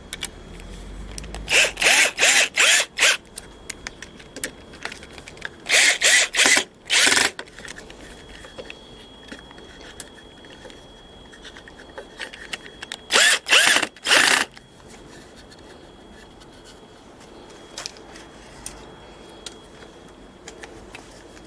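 Cordless drill-driver run in short trigger pulses: three groups of about four to six quick bursts, with pauses between the groups.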